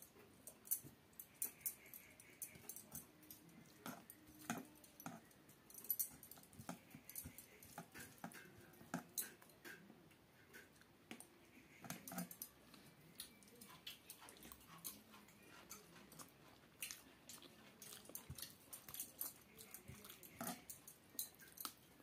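Close eating sounds of rice and curry eaten by hand: many wet mouth clicks and smacks from chewing, with a few short, faint whines now and then.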